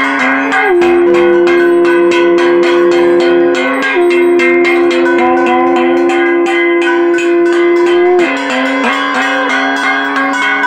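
Conch shell (shankh) blown in two long steady blasts, each starting with a small upward scoop, the second ending about eight seconds in; a hand bell rings rapidly and music keeps playing underneath.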